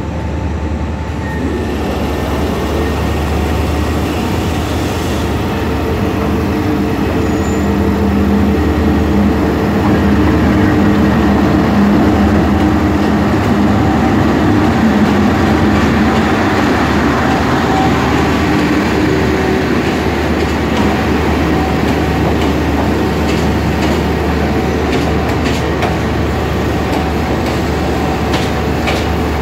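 A D19E diesel-electric locomotive runs slowly past as it pulls a passenger train into the station, its steady engine hum growing louder as it comes close and then easing. Its coaches roll by after it, with a few sharp wheel clicks near the end.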